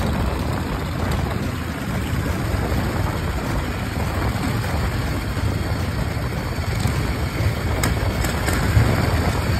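Two chopper motorcycles cruising at steady speed: a steady low engine rumble mixed with wind and road noise.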